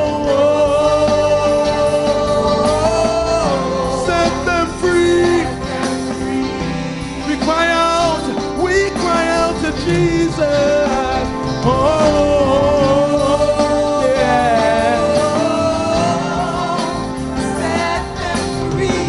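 Gospel worship band playing, with a voice singing long held notes that bend and waver in pitch, without clear words.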